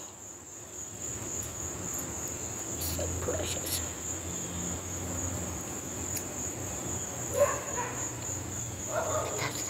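Steady high-pitched insect trill, unbroken throughout.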